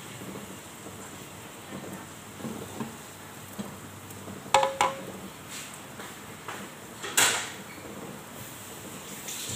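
A frying pan on a gas stove is handled with a kitchen utensil while a carrot-and-egg omelette fries, over a steady faint hiss. About halfway through come two sharp, ringing metal clinks close together, then a duller knock a couple of seconds later.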